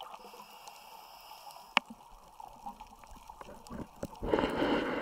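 Underwater reef ambience: faint crackling with scattered clicks and one sharp click a little under two seconds in. Near the end, a loud burst of bubbling from a scuba diver exhaling through the regulator.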